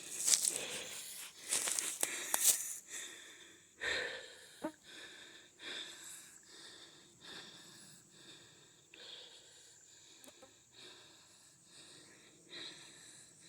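Loud rustling and crackling of dry leaves for the first few seconds, then a person breathing heavily in regular breaths, about one a second, growing fainter.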